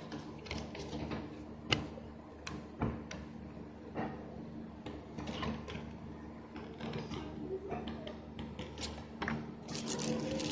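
Paper user manual rustling and crinkling as it is leafed through and unfolded by hand, with scattered sharp clicks and taps from handling, over a faint steady low hum.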